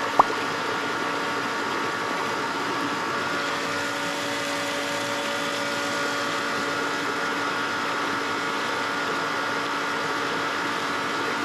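Seawater churning and bubbling in an aosa-nori washing tank, over the steady hum of the pump that circulates it; the sound stays even throughout.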